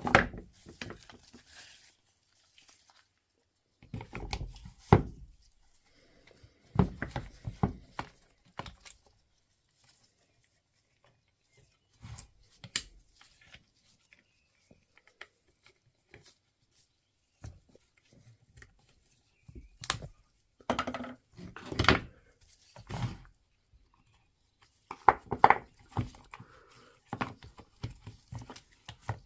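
Parts of a DeWalt DCH253 cordless rotary hammer handled during reassembly: scattered clicks, knocks and rattles of plastic and metal pieces and tools on the bench, in short clusters every few seconds with quiet gaps between.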